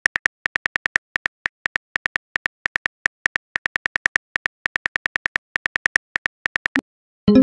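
Phone keyboard typing clicks as a message is typed out: rapid, slightly irregular taps, about six a second, that stop shortly before the end. A short message-sent sound begins right at the close.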